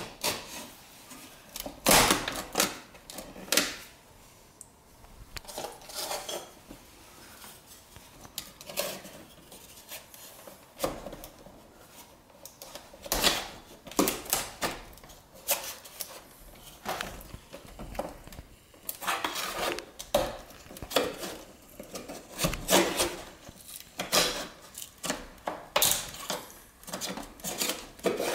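Metal hand tools prying, tapping and scraping at painted wooden window trim: irregular sharp clicks and knocks with short scrapes, in clusters.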